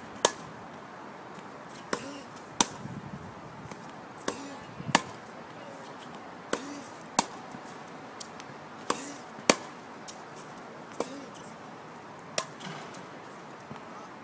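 Tennis rally on a hard court: sharp pops of the ball struck by the rackets and bouncing on the court. They mostly come in pairs, a bounce then a hit, repeating about every two and a half seconds.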